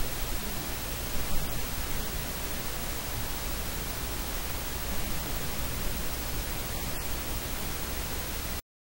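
Steady static hiss with no speech audible. The sound cuts out completely near the end.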